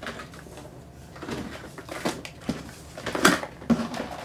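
Cameras and gear being handled and rummaged through in a box: a series of short knocks and clatters, the sharpest about three seconds in.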